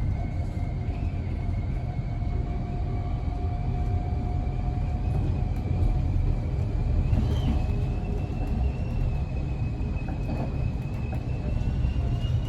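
Class 707 electric multiple unit running, heard from inside the carriage: a steady low rumble with a thin high whistle that slowly rises in pitch. The whistle is the odd noise that sounds like wind blowing through the doors.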